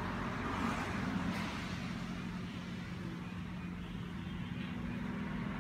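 Steady low background hum and rumble, with no clear speech or knocks.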